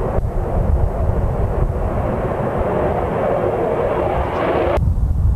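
F-16 fighter jet taking off in afterburner: loud steady jet noise over a deep rumble. The upper part of the noise cuts off abruptly near the end, leaving only a low rumble.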